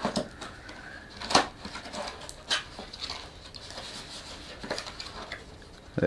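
Small cardboard product box being opened by hand: rustling and scraping of the flaps with a few sharp snaps, the loudest about a second and a half in.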